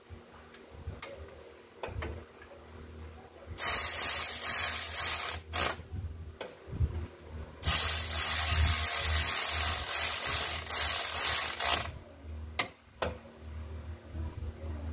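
Battery-powered cordless drill-driver running bolts in, in bursts: one of about a second and a half, two short blips, then a longer run of about four seconds. Light metal clicks and taps come in between.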